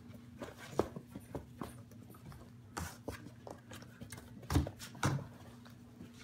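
Great Dane puppies scrabbling and bumping around a wooden whelping box, their paws knocking and rubbing on the rail close to the microphone, with two louder thumps about four and a half and five seconds in. A faint steady hum lies underneath.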